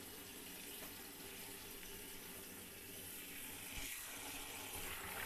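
Tap water running steadily into a plastic bucket of red amaranth leaves being washed. From about four seconds in, a hand swishes the leaves about in the water.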